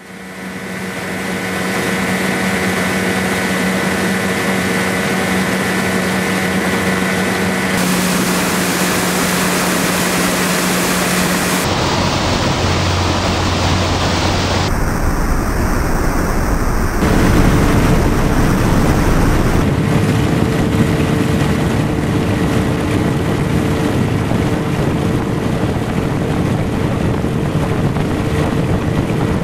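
Small boat's outboard motor running at speed, with rushing water and wind buffeting the microphone. The engine's hum and the noise change abruptly several times.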